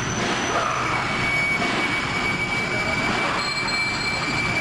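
Steady machine-like drone, with a thin high whine that sets in about a second in and holds steady.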